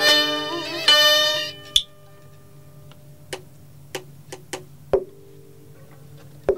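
Vietnamese đờn ca tài tử ensemble of plucked and bowed strings playing, then falling away about a second and a half in to a sparse stretch. In that stretch there are only a handful of sharp clicks and isolated plucked notes over a faint held tone, before the full ensemble comes back in at the very end.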